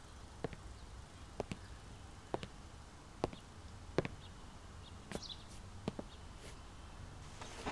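Slow footsteps: about eight light, sharp clicks of shoes on a hard floor, roughly a second apart, over faint room tone.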